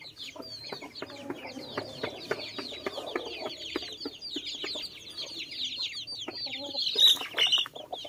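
A flock of young chickens peeping without pause in short, high, falling chirps, with the tapping of beaks pecking feed from a metal pan and lower clucking from the adult birds. A louder burst comes about seven seconds in.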